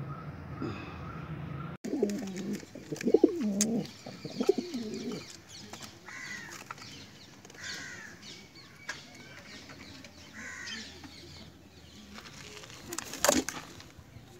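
Domestic racing homer pigeons cooing in low, rolling coos about two seconds in. Higher, shorter bird calls follow, and a single sharp clack comes near the end.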